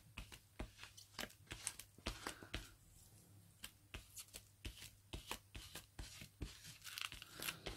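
Faint, irregular rustling, light clicks and taps of decorative paper being handled and smoothed by hand on a cutting mat.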